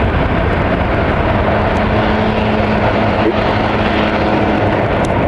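Boeing 737-700 airliner's CFM56 jet engines, a loud steady rush of jet noise as the aircraft lands, with a faint low steady hum through the middle.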